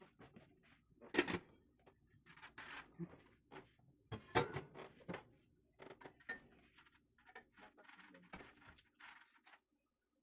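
Metal tongs clinking and scraping against a stainless steel steamer pot while lifting a foil-covered leche flan mold out of it: irregular light clinks and scrapes that stop shortly before the end.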